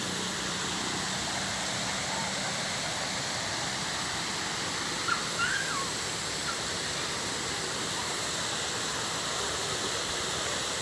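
Waterfall rushing, a steady, even roar of falling water. A few short high chirps cut through about halfway.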